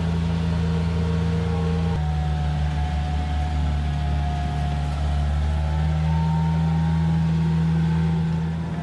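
Heavy diesel engine running steadily at working speed. Its tone changes abruptly about two seconds in and rises slightly around six seconds.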